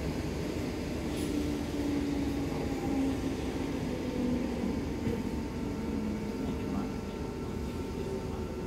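Cabin noise inside an NS SGMm sprinter electric multiple unit: a steady low rumble with a faint steady whine above it.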